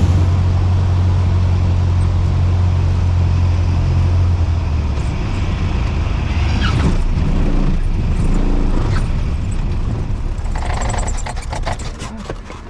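Small plane's engine heard from inside the cabin: a steady low drone that drops away about four or five seconds in, leaving a rougher rumble. Near the end come a quick series of clicks and knocks as the noise starts to fade.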